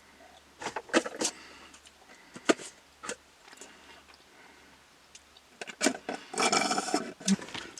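Scattered soft clicks and taps of things being handled, then about a second of rustling near the end.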